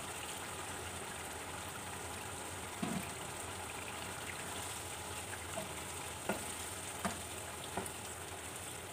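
Beef liver simmering and sizzling steadily in its juices in a pan, with a steel spoon clinking lightly against the pan about five times as yogurt is stirred in.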